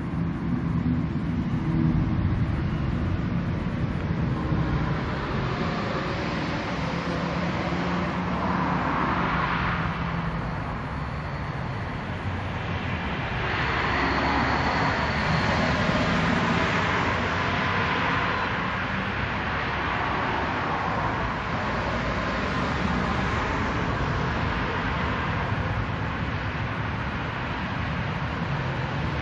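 Steady background noise of distant road traffic, swelling louder twice, once around ten seconds in and again for several seconds in the middle.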